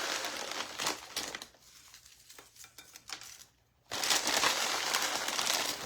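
A bag of Fritos corn chips crinkling as chips are shaken out onto the casserole in the baking dish, in two stretches: about a second and a half at the start and about two seconds near the end, with a few light clicks in the quieter gap between.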